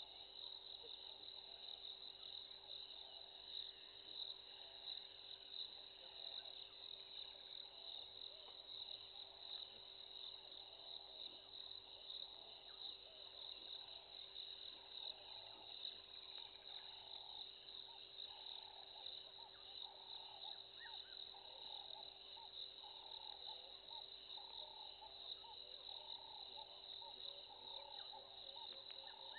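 Faint steady chorus of crickets, a shrill pulsing trill, with a lower repeated calling joining in about halfway through.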